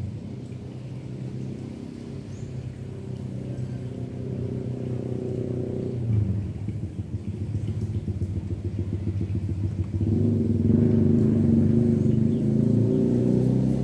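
Motor vehicle engine running with a low rumble, growing steadily louder and stepping up about ten seconds in.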